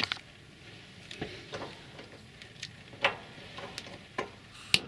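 Two-burner camping gas stove being lit: about seven sharp clicks at irregular intervals as the burners are ignited.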